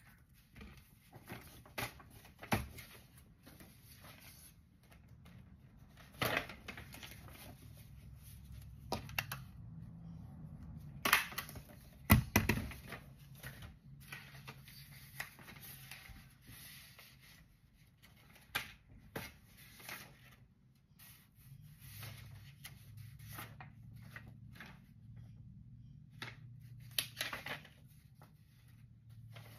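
Paper sheets rustling and being handled on a desk, with scattered clicks and knocks; the loudest knock comes about twelve seconds in.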